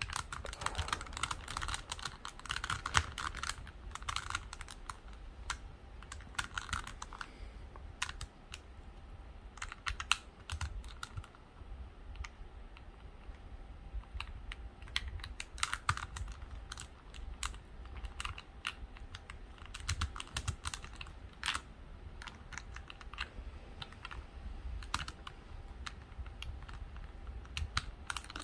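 Plastic pieces of a Rua cube puzzle clicking and rattling irregularly as fingers work an internal piece into the core. The clicks are short, small and scattered through the whole stretch.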